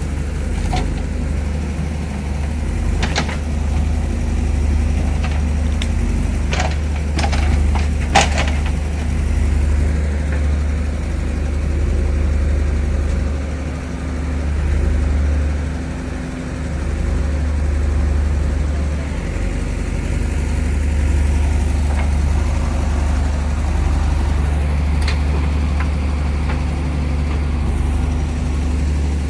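JCB backhoe loader's diesel engine running steadily, with several sharp cracks in the first third and a couple more near the end.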